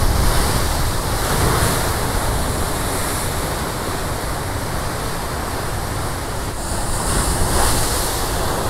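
Ocean swell breaking and washing over rocks just below, a continuous surf wash with louder surges right at the start and again about seven seconds in.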